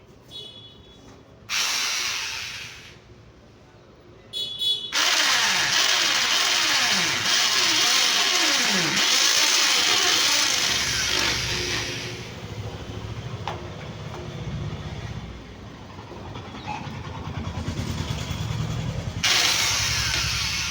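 A motor vehicle engine starting and running. Its pitch falls over a few seconds, then it settles into a low, steady rumble.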